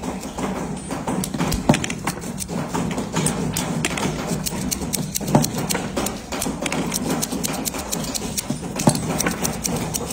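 Rapid light metal clicks and taps as a padlock's parts are fitted together by hand, over a steady low hum. Three sharper knocks stand out, about two, five and nine seconds in.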